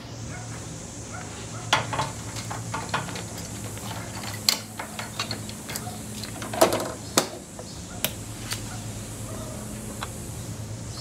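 Scattered sharp clinks and knocks, as of metal parts or tools being handled, over a steady low hum.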